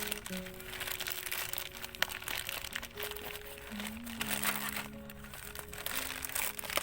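Soft background music with held notes, during an instrumental break in a Korean pop song, with packaging crinkling and rustling as a gift is unwrapped.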